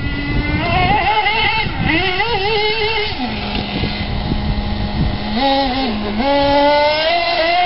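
Radio-controlled buggy's small engine running, its high whine rising and falling with the throttle. In the middle it settles to a steady lower note for about two seconds, gives a couple of short blips, then revs up again near the end.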